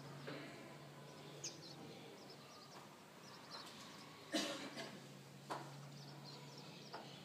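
Quiet town ambience: scattered faint bird chirps over a low steady hum, with a few sharp knocks, the loudest a little past the middle.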